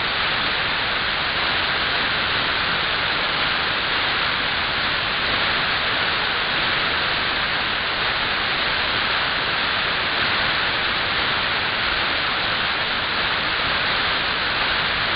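Steady radio hiss from an AM airband receiver tuned to 134.400 MHz, with no transmission on the channel and the squelch open.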